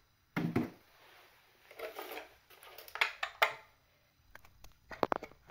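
Scattered light clicks and knocks of scale RC helicopter body parts being handled and fitted: one near the start, a few around the middle and a quick run of small clicks near the end.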